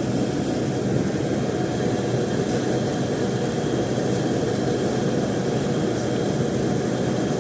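BlueStar ductable air conditioner running steadily, its compressor and condenser fan making a constant low hum, while R22 refrigerant is being charged into the running system.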